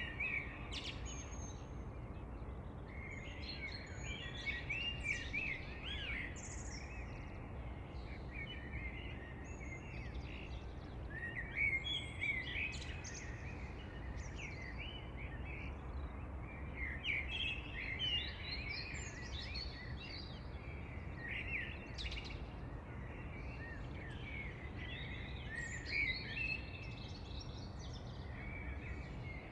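Songbirds chirping and singing in quick bursts of short notes, over a steady low background rumble.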